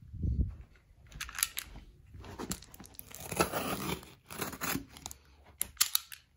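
Utility knife slicing through clear packing tape along a cardboard box seam, with crackling tape and scraping, rustling cardboard, and a few sharp clicks near the end.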